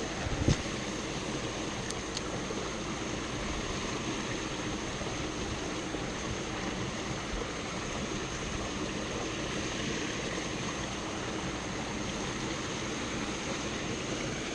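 Steady rushing outdoor background noise with a thin, steady high-pitched drone over it, and a single brief knock about half a second in.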